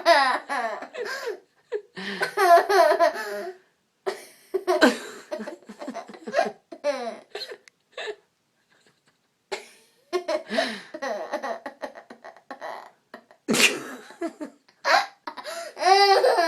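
A little girl giggling in repeated bouts, each fit jerked along by hiccups and set off by a sharp catch of breath, with a short pause about halfway through.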